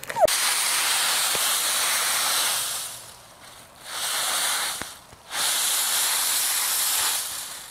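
Dry leaves rustling and crunching as a dog bounds through a leaf pile, in three bursts: a long one of about two and a half seconds, a short one, then another of about two seconds.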